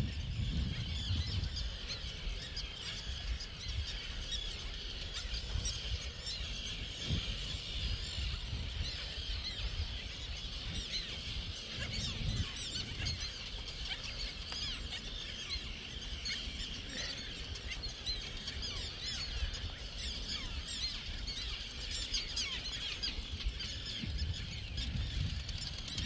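A colony of terns calling constantly in alarm over their nesting area: many harsh, overlapping calls with no break, warning an intruder away from the nests. A low rumble runs beneath them.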